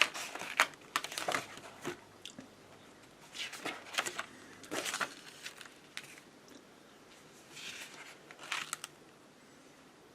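Paper pages of an instruction manual being turned and handled, rustling in three bouts.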